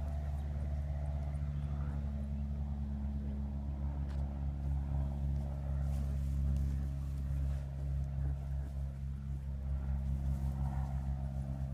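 A motor running with a steady low hum, made of several constant low tones, with a few faint rustles and small knocks over it.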